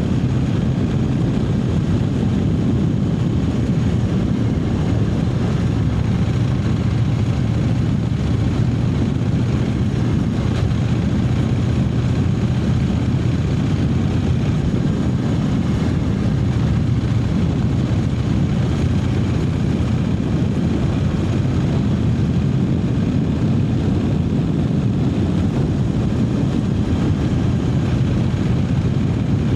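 Triumph Speed Twin 900's 900 cc parallel-twin engine running steadily under way, a constant low engine note with no revving up or down.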